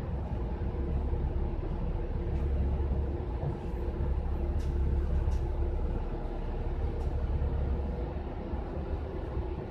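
City bus running, heard from inside the cabin: a steady low rumble of engine and road noise with a faint steady whine on top, and a couple of light clicks about halfway through.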